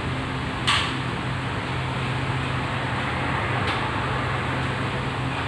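Steady machine hum in a small room, like a running fan or air conditioner, with a sharp click a little under a second in and a fainter click later.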